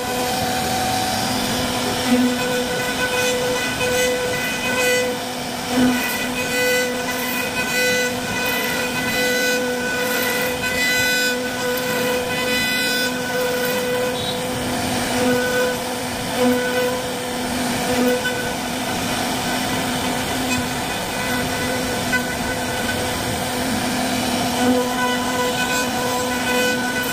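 CNC wood router spindle running steadily with a high whine while its small carving bit cuts a relief pattern into a wooden panel, a rasping cutting noise under the whine that swells and eases a little as the bit's load changes.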